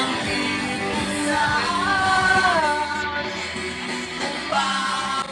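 Background music: a woman singing a melody over light guitar accompaniment.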